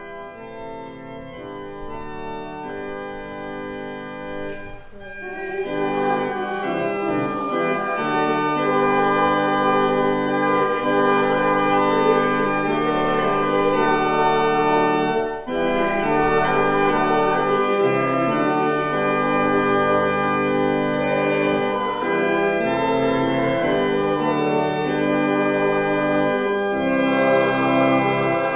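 Organ playing slow, sustained chords, starting softly and swelling louder about five seconds in.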